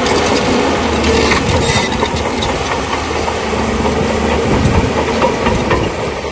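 Bulldozer's diesel engine running steadily under load, with stones crunching and cracking as rock is pushed.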